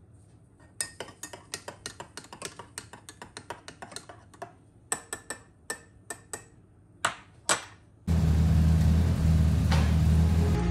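Metal teaspoon stirring a ceramic mug, clinking against its sides in quick irregular taps, a few of them louder near the end. About eight seconds in it cuts suddenly to a loud, steady low rumble.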